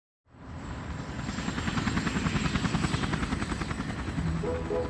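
Helicopter rotor chopping, fading in and growing louder. A few music notes join near the end.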